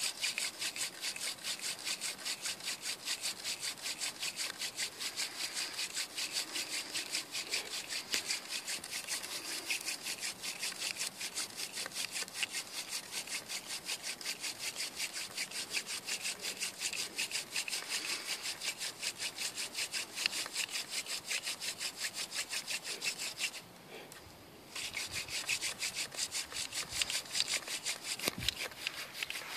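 Hand drill fire-making: a cattail stalk spindle spun back and forth between the palms against a white pine hearth board, a fast rhythmic wood-on-wood rubbing at about three strokes a second, with one short pause about 24 seconds in. The friction is grinding out hot dust to form a coal.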